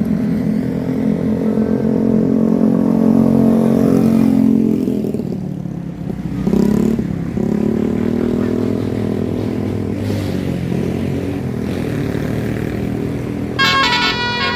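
Bus engine running as it passes, its sound swelling and easing off, with a second swell about halfway through. About a second before the end, a multi-tone musical bus horn (a 'telolet' horn) starts sounding.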